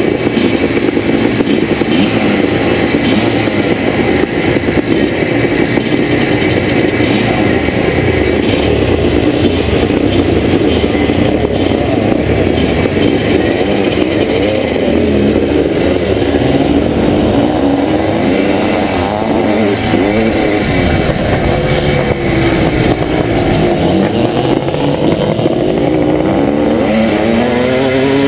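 Several vintage twin-shock motocross bikes running at the start line, the nearest a 1981 Can-Am MX-6B 400 two-stroke single, with revs rising and falling as riders blip their throttles. Near the end the engines rev up as the bikes accelerate away across the field.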